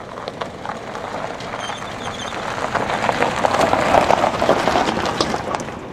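Pickup truck driving past over gravel, its tyres crunching on the stones with a dense crackle, getting louder to a peak about four seconds in and then fading.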